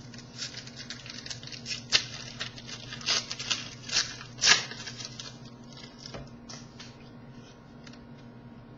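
Trading cards and their packaging being handled: irregular rustling and crinkling with a few sharper crackles near the middle, over a low steady hum.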